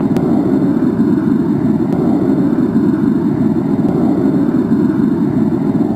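Steady, muffled radio hiss of an air traffic control channel in a gap between transmissions.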